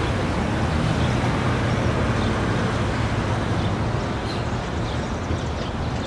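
Steady low rumble of city traffic on a street.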